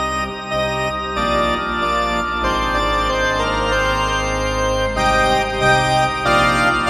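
Korg Z1 synthesizer playing an organ patch: sustained minor chords over a held bass, played with both hands, the chord changing every second or so.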